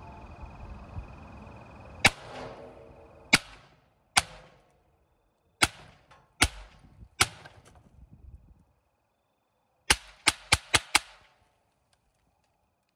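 Eleven shots from a Marlin Model 60 semi-automatic .22 rifle firing Blazer .22 Long Rifle 40-grain rounds: six single cracks about a second apart, then a quick string of five near the end.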